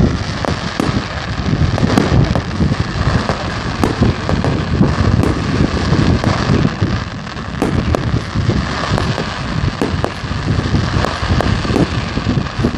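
Fireworks display: a dense, continuous run of sharp pops and crackles as fans of golden comets are fired, over a low rumble of wind on the microphone.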